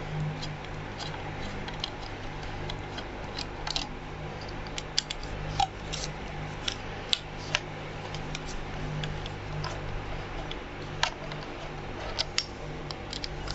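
Scattered small clicks and taps from hands working on an overlocker sewing machine as it is opened up, over a steady low hum.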